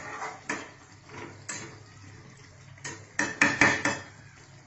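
Metal spoon stirring chicken curry in a cooking pot, with scattered scrapes and clinks and a quick run of loud knocks against the pot about three seconds in.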